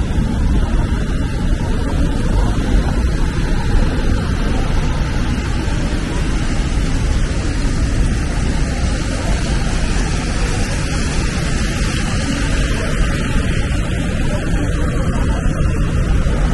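Steady downtown traffic noise: a continuous rumble and hiss of passing vehicles, with no single event standing out.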